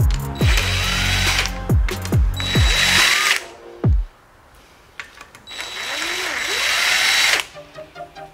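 Cordless DeWalt impact driver running bolts on a Toyota R150F transmission's center plate: several short trigger pulls in the first three seconds, each winding down in pitch, then a steady run of about two seconds.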